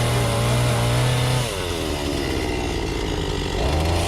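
Chainsaw engine running in a cut, its pitch dropping about a second and a half in as it bogs under the load of the wood, then picking back up near the end.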